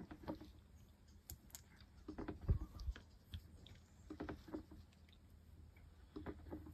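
Faint plastic clicks and knocks of a Slippery Pete hand pump on a quart gear-oil bottle, worked by hand to push oil into an outboard's lower unit. The clicks come in irregular clusters, with one low thump about two and a half seconds in.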